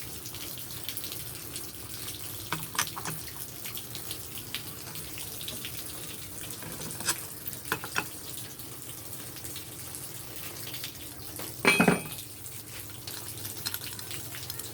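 Scattered clicks and clinks of hand tools and metal parts as the top cover of a Honda TMX 155 motorcycle engine is being opened, over a steady background hiss. The loudest is a single ringing metal clink about twelve seconds in.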